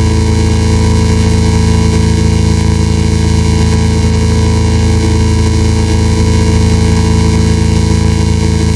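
A loud, unchanging droning noise: a dense hiss over a strong low hum, with several steady tones held throughout.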